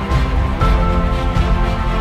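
Background music: an upbeat instrumental track with a steady low beat and sustained notes.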